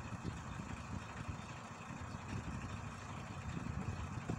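Diesel engine idling with a steady, low, uneven rumble, most likely the mobile crane's engine running to power its hydraulic system.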